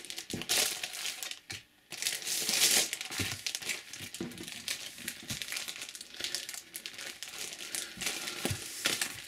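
Packaging of a trading-card multipack being opened by hand, crinkling and crackling irregularly, with a short pause about one and a half seconds in.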